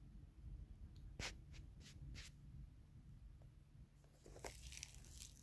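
Near silence, with a few faint clicks from about a second in and a brief rustle near the end as a pair of leather sneakers is handled and turned over.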